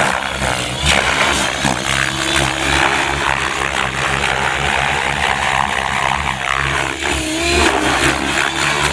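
Gaui X7 radio-controlled helicopter flying 3D manoeuvres at high head speed: the rotor blades whoosh and the drive hums steadily, with the pitch sliding up and down as the pilot loads the rotor, most clearly near the end.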